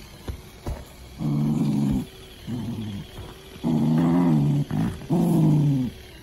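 Small white dog growling in play as it mouths a big plush ball: four low growls, each about half a second to a second long.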